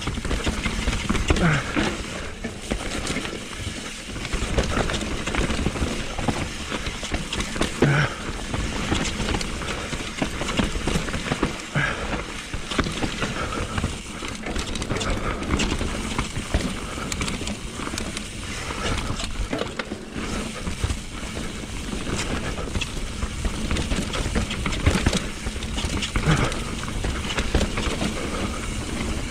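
Mountain bike riding fast down a dirt forest singletrack: a steady rush of tyre and wind noise with frequent rattles and clatters as the bike runs over bumps and roots.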